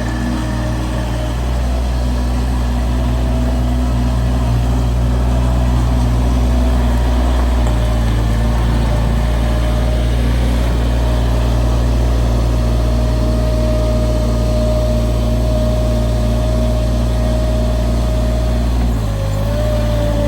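Heavy-equipment engine running steadily under load. Its note shifts about seven seconds in and dips briefly near the end.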